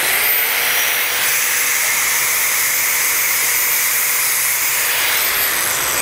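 Festool angle grinder with a flap disc spinning up, running at full speed while sanding a wood board, then winding down about five seconds in. A steady high whine sits over a loud rushing hiss from the abrasive.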